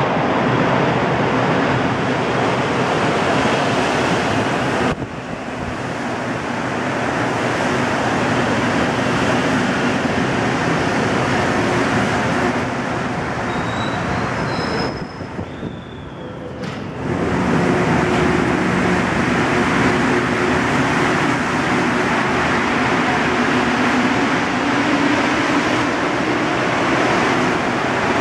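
Rubber-tyred Montreal Metro MR-73 train running along the platform, a loud steady rushing noise with a low motor hum. The noise drops abruptly about 5 seconds in and again around the middle, then comes back at full level.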